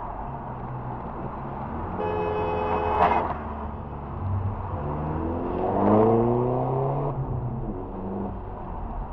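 Car driving at motorway speed, heard from inside the cabin: steady road and engine rumble. About two seconds in a steady pitched tone sounds for about a second and ends in a sharp knock, and around six seconds in the engine revs up, its pitch rising.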